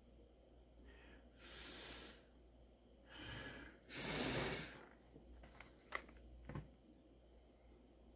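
A person breathing out through the nose three times, the third the loudest, then two small clicks about two-thirds of the way through.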